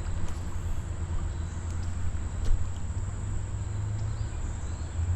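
Outdoor creek-side ambience: a steady low rumble with a faint high insect drone over it and a few small clicks, the loudest about two and a half seconds in.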